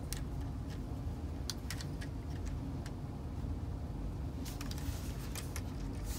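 Light plastic clicks and taps of hands handling a Lego brick model car, a few single clicks and then a short cluster near the end, over a steady low hum.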